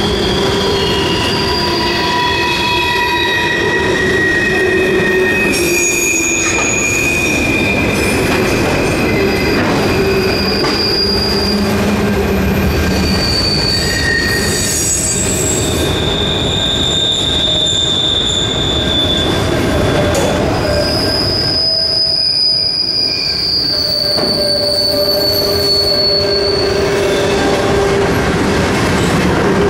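Freight cars of a Canadian National train rolling past with a steady rumble, their wheels squealing in long held tones that change pitch and come and go every few seconds: flange squeal as the wheels grind around a curve.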